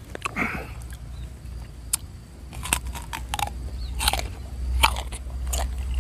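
Close-up crunching and chewing of crisp raw fruit dipped in rujak chilli sauce: a bite about a second in, then a string of irregular wet crunches as it is chewed, over a steady low rumble.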